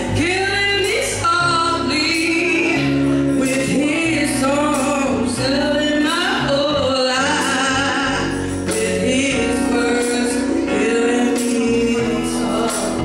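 A woman singing live into a microphone, her voice sliding and bending between notes, backed by a live band that holds steady low notes underneath.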